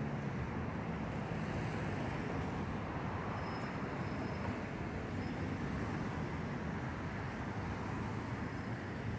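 Steady city road traffic: car engines and tyres running on a busy street, an even noise with no single standout event.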